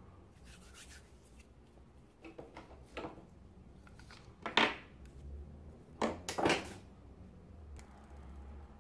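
Plastic Play-Doh tools handled on a tabletop: a few short rubs and clacks as the orange extruder is picked up. The loudest come about four and a half seconds in and twice more around six and a half seconds in.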